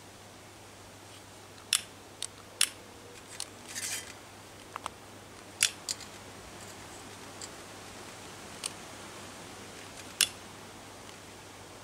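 Hand pruning shears snipping twigs over a stainless steel wood-burning camp stove: a handful of sharp clicks, three in the first three seconds, two about halfway, one near the end, with a short rustle of sticks about four seconds in.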